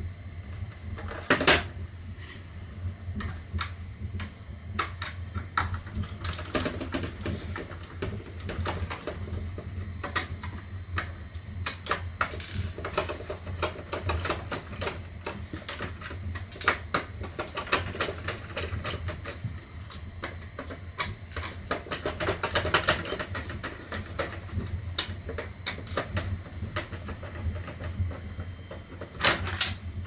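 Irregular clicks and knocks of a Roomba's plastic housing being handled and its screws worked with a screwdriver, with a sharper knock about a second and a half in and another near the end. A steady low hum runs underneath.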